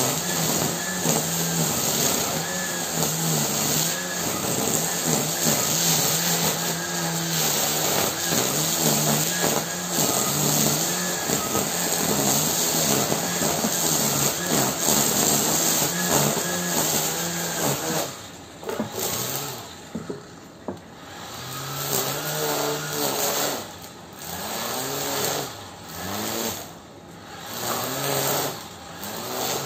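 Gardena grass trimmer running steadily while cutting grass. From about eighteen seconds in it is sped up and let drop in repeated short bursts, each with a rising and falling whine.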